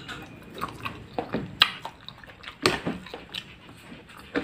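Close, wet chewing and mouth smacking of a mouthful of sayur asem vegetables, including cooked melinjo leaves, with a few sharper clicks.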